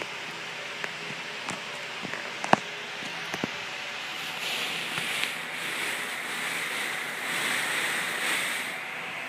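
A dog sniffing: a breathy hiss that swells about halfway through and fades near the end, after a few sharp clicks.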